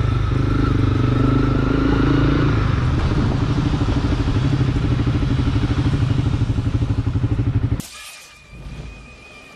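Motorcycle engine running at a steady speed, with a fast, regular pulsing in its beat from about three seconds in. It cuts off abruptly near the end, leaving a much quieter background.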